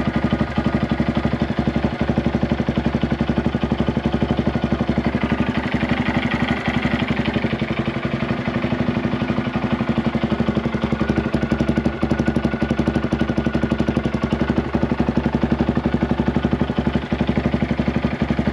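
2023 Honda Grom's single-cylinder four-stroke engine idling steadily through a newly fitted Yoshimura RS-9T stainless full exhaust, with the baffle still in. This is the first start on the new exhaust, left at idle for its burn-in period.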